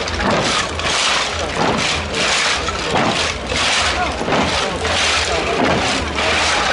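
Crowd hubbub with voices, and a noisy rhythmic beat about twice a second from costumed folk dancers dancing around a bonfire.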